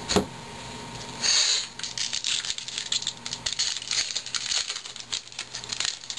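A sharp knock just after the start. Then a 2011 Topps baseball card pack wrapper is torn open about a second in and crinkled and crackled by hand as the cards are pulled out.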